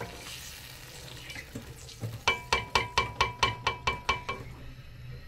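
A plastic slotted spoon stirring peas and water in a non-stick pan, with a faint sizzle. About two seconds in, roughly ten quick ringing taps follow at about five a second, as the spoon is knocked against the pan's rim.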